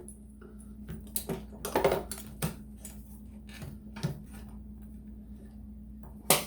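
Irregular clicks and knocks of a motorcycle battery being set in place and its cable terminals handled, with the sharpest knock near the end.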